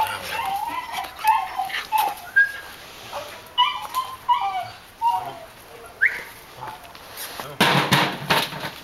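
Belgian Malinois puppy whining and yelping in many short, high cries that rise and fall, over and over. A loud burst of rustling noise comes near the end.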